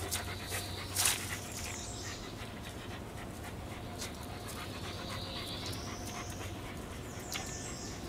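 A black dog panting close by in the heat, with a short louder burst about a second in.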